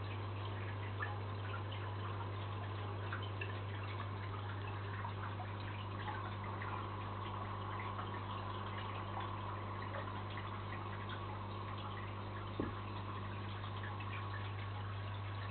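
Aquarium equipment running: a steady low hum with faint scattered ticks and drips of water. A sharper click comes about twelve and a half seconds in.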